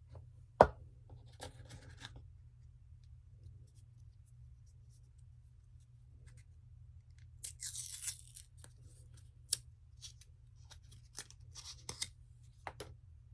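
Paper packaging being handled and opened: a sharp tap near the start, some rustling, a tearing burst about eight seconds in, then several light clicks and taps.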